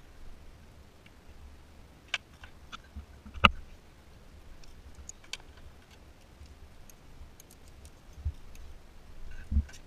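Hands handling wiring, a plastic connector and a hand tool in a car's engine bay: scattered light clicks and ticks, with a sharper knock about three and a half seconds in and duller bumps near the end.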